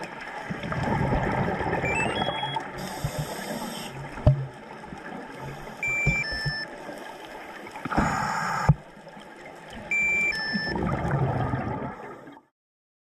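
Underwater camera audio of rushing, bubbling water that comes in surges, typical of a scuba diver's exhaled regulator bubbles. Short high beeps are scattered through it, and the sound cuts off abruptly near the end.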